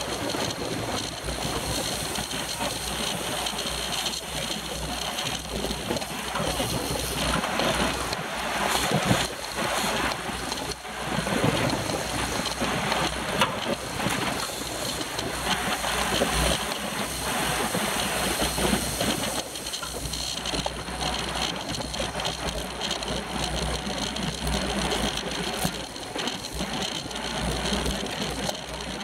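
Steady rush of wind buffeting a bike-mounted camera's microphone, mixed with road noise, while riding at racing speed in a pack of road cyclists.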